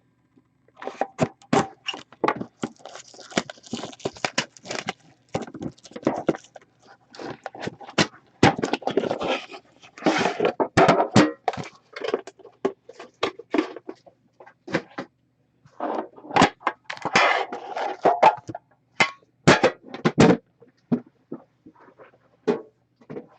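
A sealed hockey card box being unwrapped and opened by hand: plastic wrap crinkling and tearing, with cardboard scraping and thunking in quick irregular clicks.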